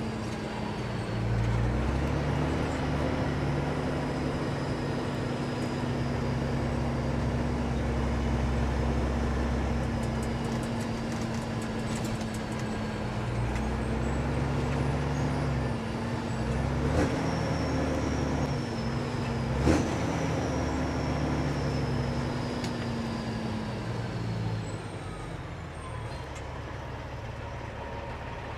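Kenworth W900 semi-truck's loud-piped diesel engine pulling away under load, then running steadily with a deep exhaust note before easing off near the end. A couple of sharp knocks come about two-thirds of the way through.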